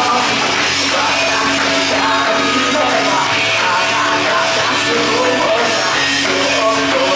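Live music through a club PA: a woman's voice singing into a handheld microphone over a loud backing track.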